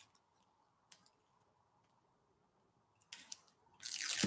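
Papery skin of a red onion being peeled off with fingers and a knife tip: two faint clicks early, then two short dry rustling tears near the end.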